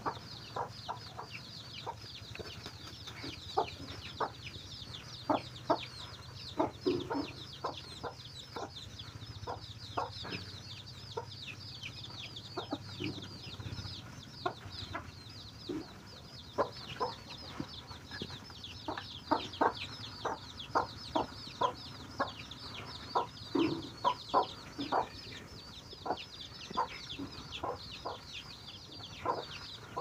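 A brood of young chicks peeping without pause in quick, high, falling chirps, while a mother hen clucks in short low notes among them.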